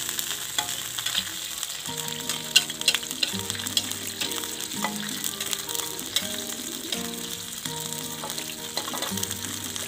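Freshwater crabs frying with chopped shallots, garlic and chilies in hot oil in a wok: steady sizzling. A spatula stirs the pan, clicking and scraping against it every so often.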